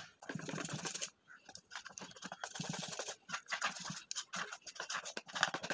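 Metal spoon beating batter in a stainless steel bowl: quick, irregular scraping and tapping of the spoon against the steel.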